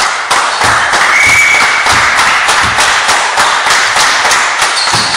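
Several people clapping hands in a gym hall, a dense fast patter of claps that dies away near the end.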